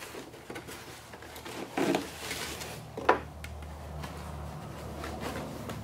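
Plastic wrapping rustling and foam parts rubbing as a foam RC plane's bagged wings are worked out of a polystyrene packing tray, with one sharp click about three seconds in.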